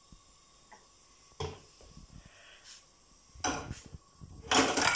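Frying pan being handled on a gas hob: a single knock about a second and a half in, then a short clatter and a louder clattering of the pan against the stove near the end.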